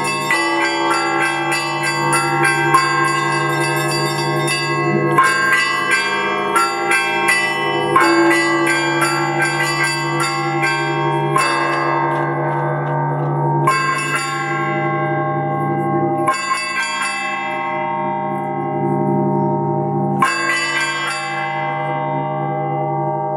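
Russian church bells rung in a zvon by a bell-ringer: quick patterns on the small bells over the deep, lingering hum of the large bells, with heavier strikes every few seconds. The small bells drop out through the middle, leaving the low bells ringing and fading between blows, and the quick small-bell pattern comes back near the end.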